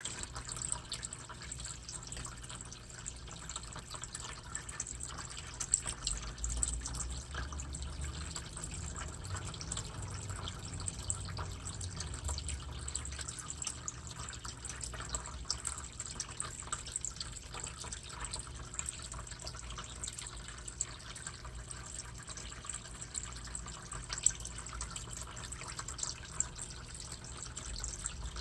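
Water trickling and dripping steadily in a turtle tank, with many small drips over a constant running-water hiss.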